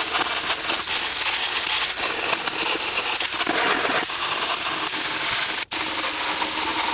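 Cordless drill spinning a wire brush against the rusty steel fender-flare brackets, scouring the rust off with a steady harsh scrubbing that breaks off for an instant about two thirds of the way through.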